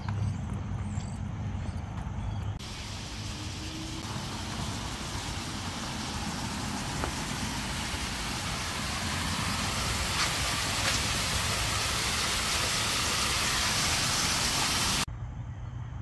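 Small stone waterfall splashing steadily onto a concrete pad, a dense, even hiss of falling water that starts suddenly about two and a half seconds in and cuts off about a second before the end. Before and after it, a low steady rumble.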